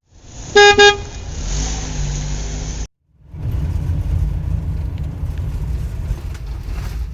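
Vehicle horn giving two quick toots about half a second in, over low engine and road rumble. After a short break about three seconds in, a steady low vehicle rumble carries on.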